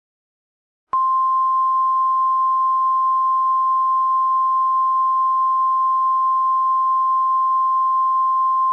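Emergency Alert System attention tone in its single-tone weather-radio form: one steady, unwavering tone starting about a second in. It signals that a warning, here a severe thunderstorm warning, is about to be read.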